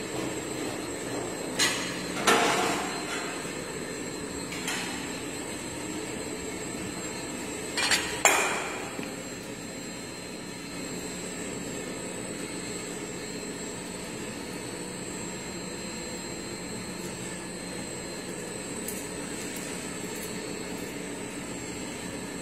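Plate leveler machine running with a steady hum, with a few sharp metallic clanks of flat metal plates striking each other or the machine table, loudest about two seconds and eight seconds in.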